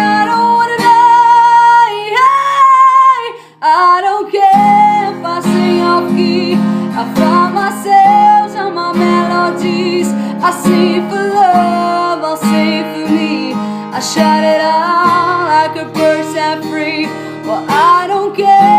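A woman singing long, wavering notes with heavy vibrato over strummed acoustic guitar. The music drops out briefly about three and a half seconds in.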